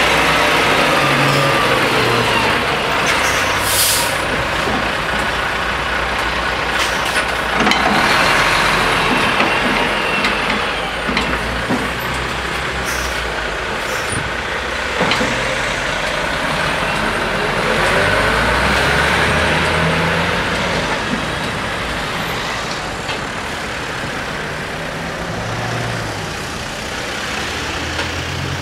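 Heavy articulated tanker truck's diesel engine pulling away and driving past close by, with a short hiss of air brakes about four seconds in and a few sharp knocks as its wheels cross the level-crossing rails, over steady car traffic.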